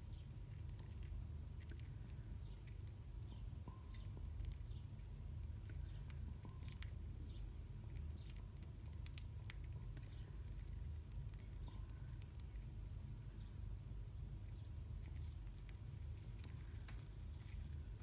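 Budgerigars pecking and husking seed from a palm: many small, irregular clicks and crackles of beaks on seed, over a low steady rumble.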